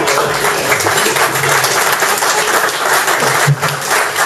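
An audience applauding, many hands clapping together.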